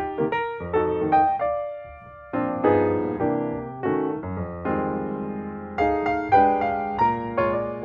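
Background music: a piano, which may be an electric piano, playing slow chords and single notes, each note struck and left to fade.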